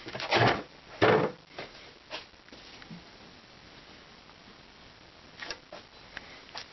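Kraft paper facing of wall insulation rustling and crinkling as a hand reaches in behind it to grab something, a few short scrapes in the first couple of seconds, then quieter handling with one more rustle near the end.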